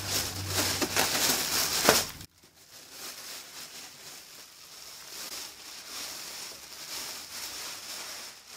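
Plastic bag crinkling and rustling as it is pulled loose from around a boxed item, loud for about the first two seconds and then cutting off suddenly, followed by fainter rustling.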